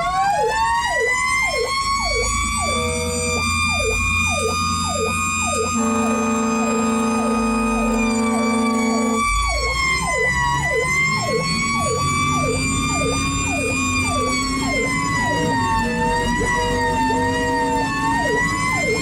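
Fire engine sirens on an emergency run. One siren winds up and holds a long, slowly wavering wail while a second siren yelps rapidly over it. Horn blasts cut in: a long one in the middle and shorter ones earlier and near the end.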